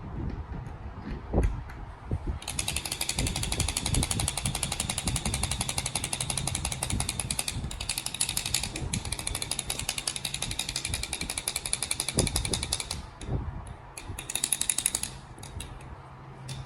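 Freshly lubed balisong (butterfly knife) being worked fast in the hands: a continuous rapid metallic clicking rattle of the handles and pivot for about ten seconds, then a shorter burst near the end, with a couple of low knocks.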